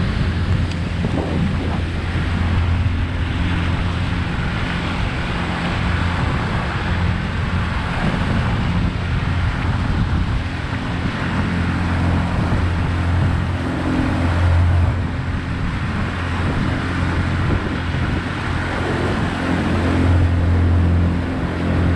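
Outboard motor of a Progress motorboat running steadily under way, a constant low drone, with water rushing past the hull and wind on the microphone.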